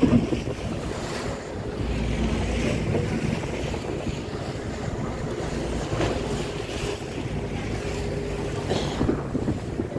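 Wind buffeting the microphone on the open deck of a moving boat, over a steady low engine hum and the sea washing against the hull.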